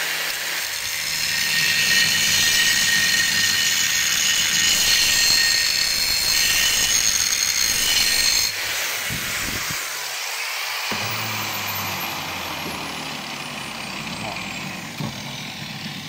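Angle grinder with a grinding disc cutting a groove into the edge of a steel square tube, a loud, steady, high grinding. About eight and a half seconds in the grinding stops abruptly, and the motor then winds down with a steadily falling whine.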